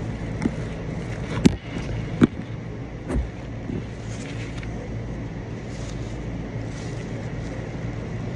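A steady low mechanical hum, with a few sharp clicks and smacks in the first few seconds.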